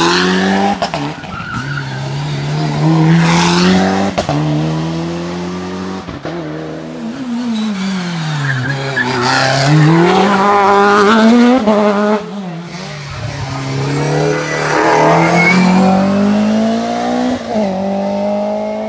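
Rally cars passing one after another, each engine revving hard. The pitch falls as the car brakes and shifts down, then climbs again as it accelerates away.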